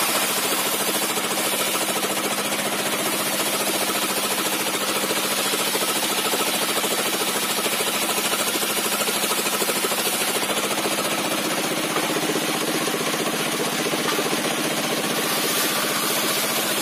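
A 60 cm sawmill circular saw with zigzag-set teeth running steadily, its engine drive giving a fast, even pulse, as a timber slab is pushed through it to rip 2-inch boards.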